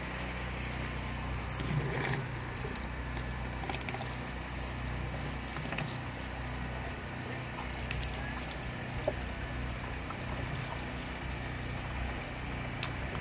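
Spring water pouring from a hose into a plastic bucket while a cow drinks from it, with a few faint clicks. A low steady hum runs underneath.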